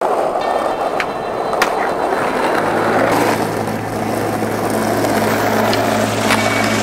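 Skateboard wheels rolling on pavement, with a few sharp clacks of the board along the way. A steady low hum comes in about two and a half seconds in.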